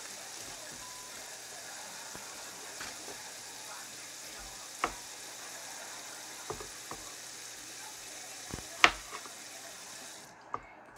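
Chef's knife cutting an onion, knocking sharply on a plastic cutting board about six times, loudest near the end, over a steady hiss that cuts off just before the end.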